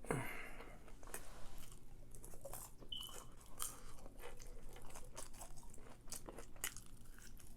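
A person chewing and biting crunchy food close to the microphone: irregular small crunches and mouth clicks throughout. A brief high tone sounds once about three seconds in.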